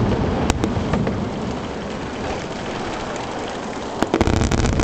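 Aerial firework shells bursting one after another, a dense run of booms and crackle that thins a little in the middle and comes back with sharp bangs about four seconds in.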